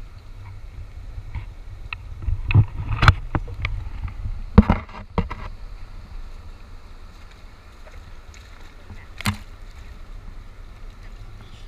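Steady low rumble with a run of sharp knocks and thumps about two to five seconds in, and one more single knock near nine seconds.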